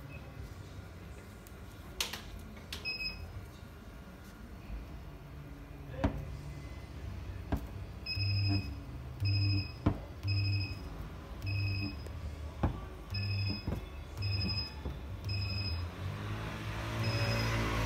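Magnetic dent-repair tool pulsing: a run of short beeps with a low electrical hum, each about half a second long and roughly once a second, starting about halfway through, with sharp metallic knocks scattered throughout.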